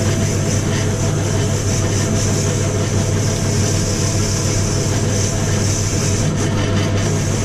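Bench pillar drill running steadily with a wire wheel in its chuck, scrubbing a metal carburettor part held against it: a steady motor hum under a high, hissing scrape.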